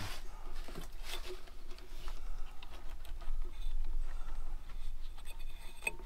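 Light clicks, taps and rubbing of hands handling a sawmill's metal electrical control panel and its wiring, with a few sharper clicks near the end.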